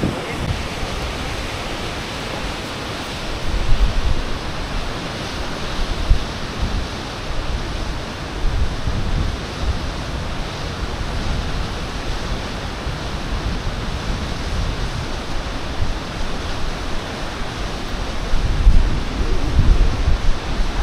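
Wind blowing on the microphone: a steady rush with low buffeting gusts about three and a half seconds in, about six seconds in, and again near the end.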